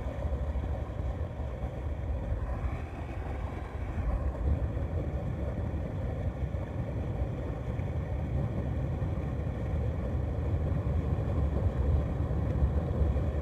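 Small tow boat running steadily on the water: a low, continuous rumble of motor, water and wind.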